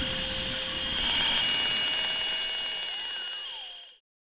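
A droning ambient soundtrack: steady high tones over a hiss, with slow tones gliding up and down. It fades out to silence near the end.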